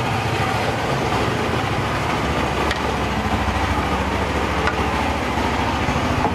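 Long-tail boat engine running steadily, with a low, fast, even pulsing.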